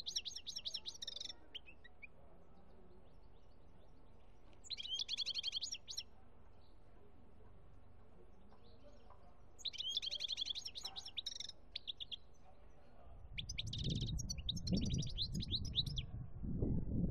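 Caged European goldfinch singing: four short bursts of quick twittering trills, a few seconds apart. A low rumbling noise comes up under the last burst.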